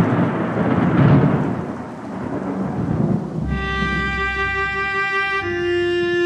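A deep rumble like rolling thunder, swelling twice in the first second and dying away over about three seconds. Slow music of held string notes over a low drone then comes in, moving to a new chord about two seconds later.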